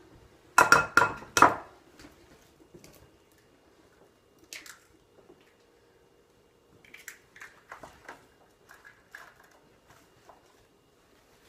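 Eggs knocked against the rim of a glass mixing bowl to crack them: a quick run of four sharp, ringing knocks about a second in, followed by softer scattered clicks and taps.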